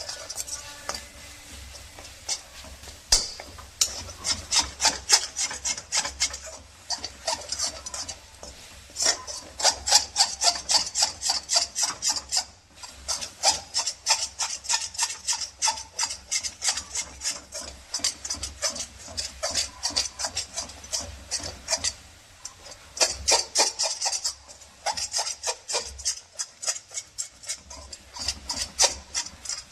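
A spatula scraping round the bottom of a kadhai in quick, even strokes, stirring melting jaggery and ginger, with a few short pauses.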